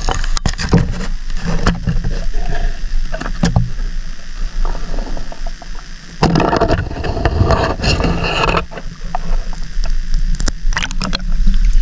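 Water sloshing and knocking around an action camera held underwater, with many sharp clicks and taps and a denser rush of water from about six seconds in, lasting a couple of seconds.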